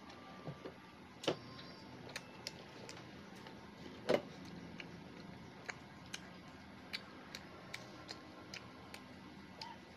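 Shell being picked and peeled by hand off a boiled balut (fertilized duck egg): scattered sharp little clicks and crackles, about one or two a second, the loudest about four seconds in.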